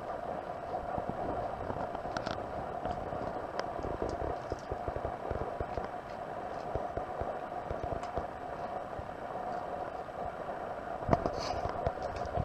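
Cat eating dry kibble: a rapid, irregular crunching of chewing over a steady hum, with one sharper click near the end.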